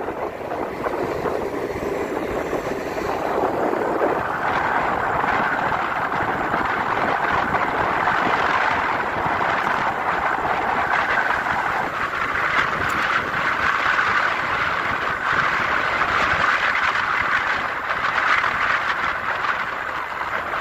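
Steady rush of wind on the microphone with tyre noise from a bicycle rolling fast on asphalt, a little louder after about four seconds.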